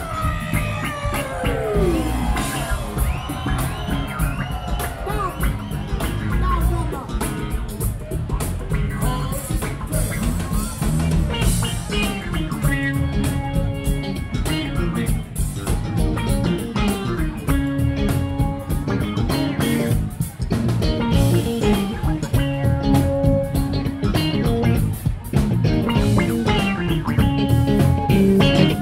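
Live funk band playing on stage: a steady, bass-heavy groove with electric guitars. A sliding note falls over the first couple of seconds, and repeated held notes come in about twelve seconds in.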